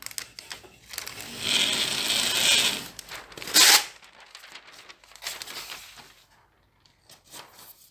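Brown masking paper pulled off the roll of a Fast Mover FMT4100 dispenser, rustling for about a second, then torn off sharply against the dispenser's metal cutter bar.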